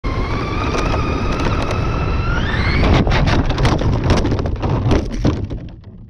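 Electric motor and drivetrain of a Traxxas Slash 2WD RC truck whining at speed over gravel, rising in pitch as it accelerates. About three seconds in, the whine cuts out and a quick run of clattering knocks follows as the truck tumbles over, dying away near the end.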